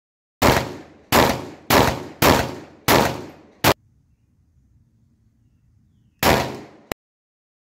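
Glock 17 pistol firing 115-grain Blazer 9mm rounds: five quick shots a little over half a second apart, each ringing off, then a sixth cut short. After a pause of about two and a half seconds, one more shot that cuts off abruptly.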